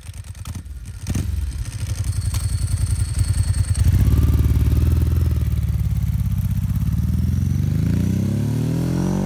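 Ducati 749 motorcycle's L-twin engine pulling away and accelerating, with the rattle of its dry clutch. The engine gets louder about a second in, then rises steadily in pitch over the last couple of seconds as the bike speeds up.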